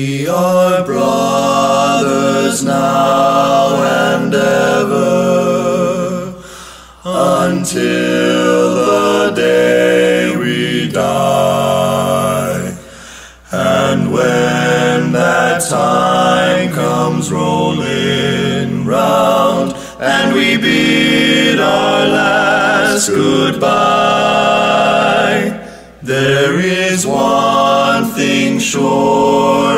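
An a cappella choir of voices singing a slow song in long held phrases, with a brief pause between phrases about every six or seven seconds.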